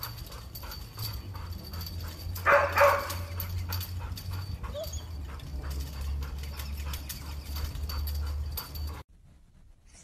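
Golden retriever giving a loud double bark about two and a half seconds in, then a quieter vocal sound near the five-second mark, over a steady low rumble with light ticking. Everything cuts off suddenly about nine seconds in.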